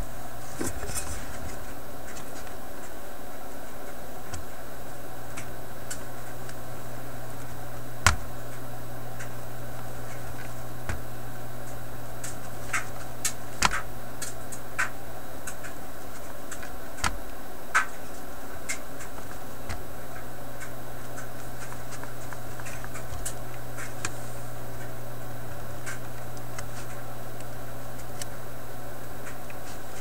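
Soldering gun humming steadily while held on to clear solder from circuit-board holes. The hum drops out for a moment about halfway through. Scattered light clicks and taps come from tool work on the board, the sharpest about eight seconds in.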